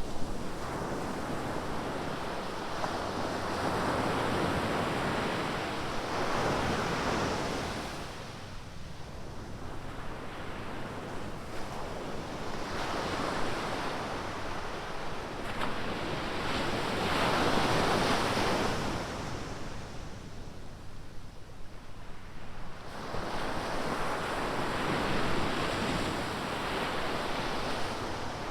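Ocean surf: waves breaking and washing up the beach, the roar swelling and fading in four or so surges.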